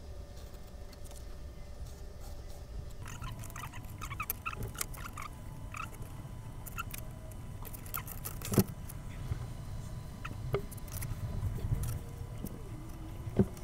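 Light scratching and small clicks of hand work on a workbench, a pencil tracing around a template on a dolls-house panel. A sharper knock comes about eight and a half seconds in and another near the end, over a steady low hum.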